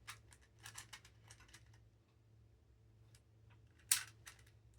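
Plastic pieces of a 3D-printed icosaix twisty puzzle clicking as its faces are turned by hand: a quick run of clicks, then a few scattered ones, with one sharper click near the end.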